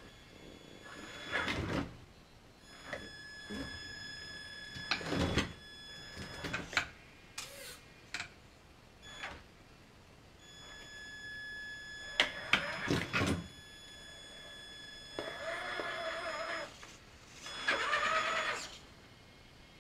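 Traxxas Summit RC truck's electric motor whining in short bursts as it crawls over a pile of split firewood, with sharp knocks and clatter of its tyres and chassis striking the logs. Near the end come two longer stretches of motor whine as it drives off.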